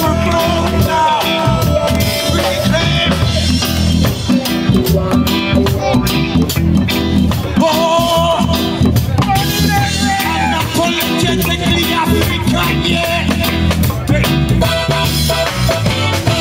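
A live reggae band playing: electric guitars, drum kit, bass and keyboard in a steady groove, with a singer's voice carrying melody lines on the microphone.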